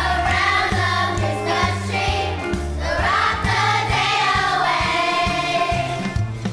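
A children's choir singing over an instrumental backing track with a steady bass line and beat.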